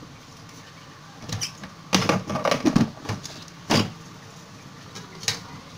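Metal ladle knocking and scraping against an aluminium cooking pot during stirring. A quick cluster of clatters comes about two seconds in, with single knocks before and after.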